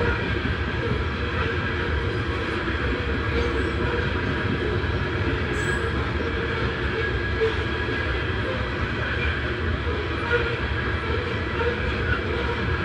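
Norfolk Southern freight train of open-top coal hopper cars rolling past at steady speed: a continuous rumble and rattle of steel wheels on the rails.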